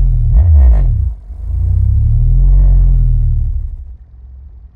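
15-inch Dayton Audio subwoofer playing a bass test track on a 300-watt plate amplifier: deep bass tones gliding up and down in pitch, with a few short sharp crackles about half a second in. The bass fades out near the end.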